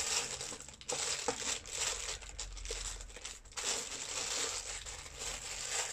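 Small clear plastic coin bags crinkling as they are handled, with a few sharper clicks among the crinkling.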